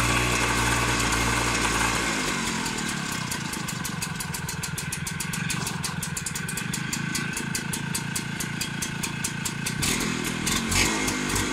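Bombardier Rotax engine of a Rasant Puma 90 walk-behind hay mower running just after being started. Its steady note drops about two seconds in, then settles into a fast, even firing beat that quickens, and the sound shifts again near the end.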